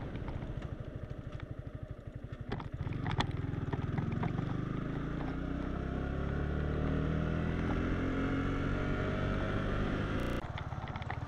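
Yamaha R15 V3's single-cylinder engine running at low revs, then accelerating from about two and a half seconds in, its note rising steadily until it drops abruptly near the end.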